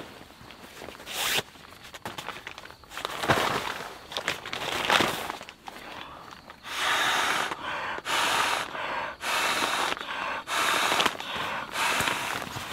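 An inflatable sleeping pad being blown up by mouth: a series of about six long breaths blown into its valve, one after another, starting a little past halfway. Before that, a few brief rustles and knocks of camping gear being handled.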